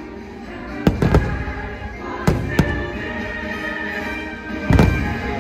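Aerial fireworks shells bursting with sharp bangs, in three close pairs about a second and a half apart. Show music plays steadily underneath.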